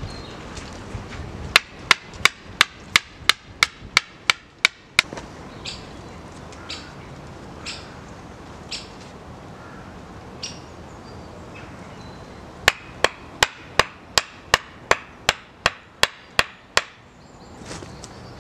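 Wooden stakes being hammered into the ground with an axe: two runs of about ten sharp knocks each, roughly three a second, separated by a pause of several seconds.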